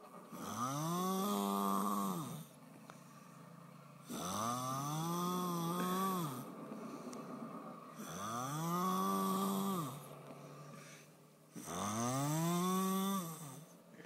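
Loud snoring, four long snores about every four seconds. Each is a drawn-out droning tone that rises in pitch, holds, then drops away, with quieter breathing between.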